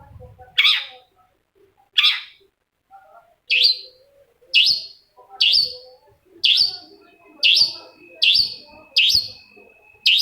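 Long-tailed shrike (cendet) giving a series of short harsh calls, spaced about a second apart at first and coming faster toward the end. A thin steady high tone joins about two-thirds of the way through.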